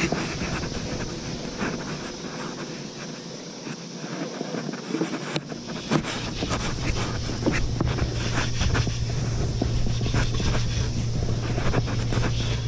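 Jacket fabric rubbing on the camera microphone, with scattered clicks and knocks. About six seconds in, a low steady hum starts and keeps on.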